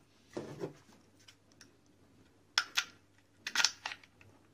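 Handling of a plastic Prorack roof-rack foot: two sharp plastic clicks about two and a half seconds in, then a quick cluster of clicks and a small key jingle as a key on a ring is pushed into the foot's lock.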